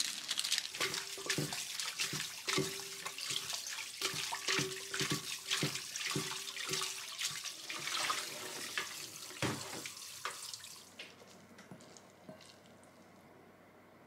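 Tap water running and splashing into a stainless steel sink as boiled noodles are rinsed and rubbed in a mesh strainer, then stopping about eleven seconds in.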